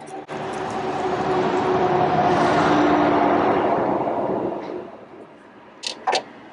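A vehicle passing by, its noise swelling to a peak about halfway through and fading away over a few seconds, followed near the end by two sharp clicks.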